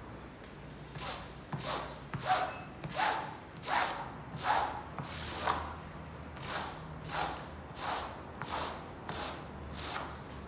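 Floor squeegee swept in repeated strokes over a soaked rug, squeezing the rinse water out of the pile: about a dozen wet swishes, roughly one every 0.7 seconds, stopping near the end.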